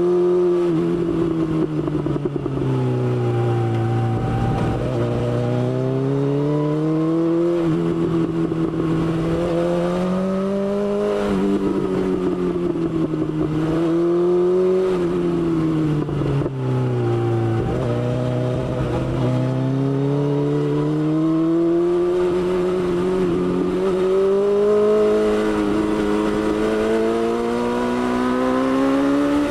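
BMW S1000XR's inline-four engine running on the road, its pitch rising and falling smoothly every few seconds as the revs change.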